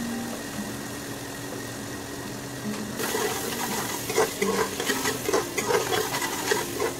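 Thick onion-and-spice masala sizzling in an aluminium pressure cooker. About three seconds in, a metal spoon starts stirring it, with irregular scrapes and clicks against the pot.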